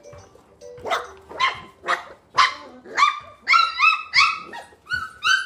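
A four-week-old puppy yapping in a rapid series of high-pitched barks, about two a second, starting about a second in and coming quicker towards the end.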